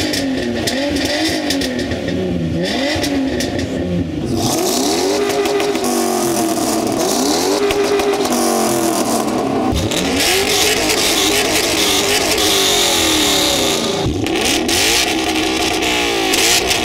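Ford Mustang engines revved in turn through their exhausts, each blipped over and over, the pitch climbing and falling with every rev. The exhaust sound changes abruptly a few times as one car gives way to the next.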